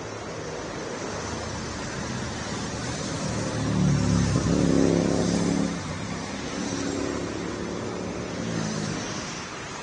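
Road traffic: a motor vehicle's engine comes close and passes about four seconds in, loudest for about two seconds, then a fainter vehicle follows, over a steady background rush.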